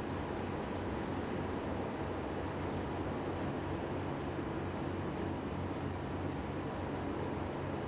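Steady low rumbling roar of a large blaze, with the constant hum of running engines beneath it.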